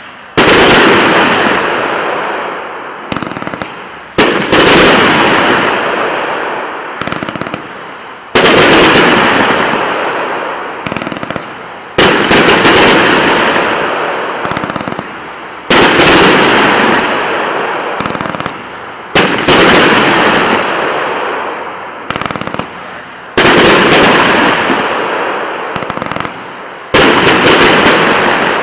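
Pro-Fusion 'Blue Mine to Gold Crown' category 4 firework firing its sequence of mine shots and gold bursts: about eight loud reports, one every three and a half to four seconds, each trailing off in a long rush of noise, with smaller pops in between.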